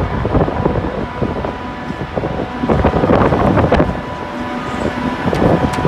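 Wind buffeting the phone's microphone on a ship's open deck, in loud uneven gusts, with a steady thin tone underneath.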